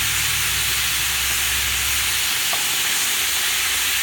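Green beans stir-frying in hot oil over high heat: a steady sizzle, with a low hum underneath that stops about two seconds in.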